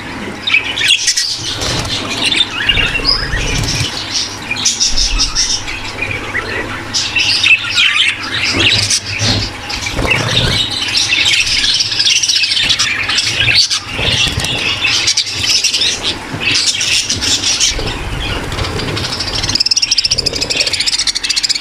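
A large flock of budgerigars in a breeding aviary chattering, warbling and chirping all at once, many birds overlapping without a break. A faint steady low hum runs underneath.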